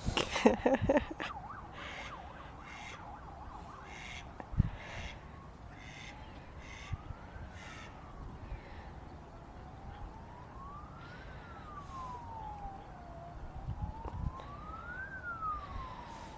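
An emergency-vehicle siren wailing faintly, its pitch rising and falling slowly about every four seconds, starting a few seconds in. At the very start, a brief loud burst of calls, the loudest sound here.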